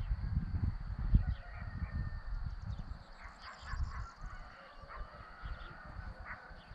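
Short animal calls, repeated several times from about three seconds in, over a low rumble that dies away at about the same time.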